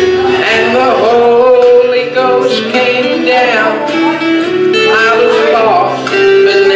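A gospel vocal group of men and women singing together, holding long notes that waver with vibrato.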